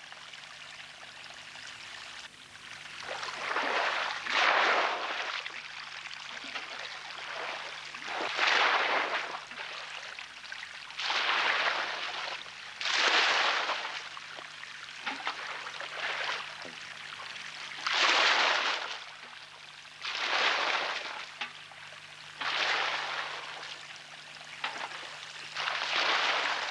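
Water being bailed out of a swamped wooden boat with a plastic bucket and poured over the side: a loud pour and splash about every two to three seconds, with quieter water trickling in between.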